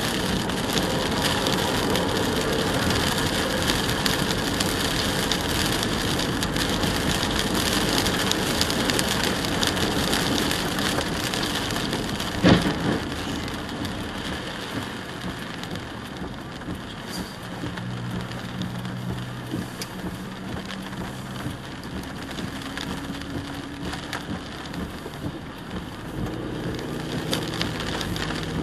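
Steady hiss of rain and wet-road tyre noise heard inside a moving car. A single sharp thump comes about twelve seconds in. After it the hiss quietens and a low hum comes in.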